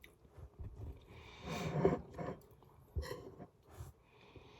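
Quiet eating sounds: breathing and chewing, with a short breathy murmur about one and a half seconds in and a light sharp tap about three seconds in.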